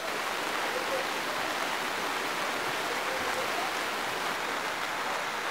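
Heavy rain falling steadily on streets and roofs, an even hiss.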